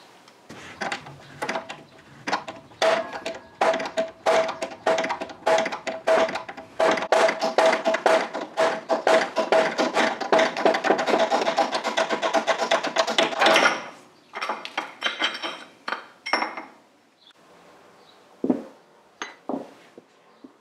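Metal workshop clicking and knocking from a steering stem being pressed out of a fork yoke in a hydraulic shop press. It comes as a fast, dense run of clicks with a steady ringing note through the middle, ends suddenly about 14 seconds in, and is followed by a few scattered knocks.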